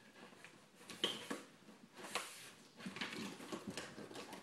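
A shipping package being opened by hand: irregular rustling and short knocks of the box and its packaging, the sharpest about a second in and just after two seconds.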